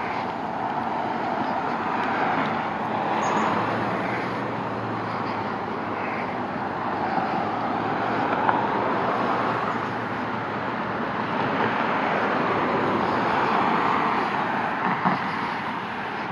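Road traffic: cars passing one after another, their tyre and engine noise swelling and fading every few seconds.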